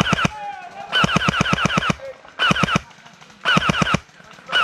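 Airsoft gun firing rapid full-auto bursts, about a dozen shots a second. The longest burst, about a second long, comes a second in, and three shorter bursts follow.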